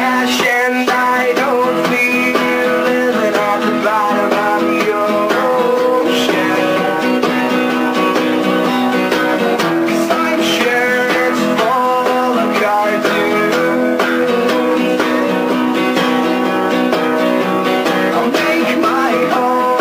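Recorded song playing an instrumental passage led by guitar, with plucked and strummed guitar notes over a steady band.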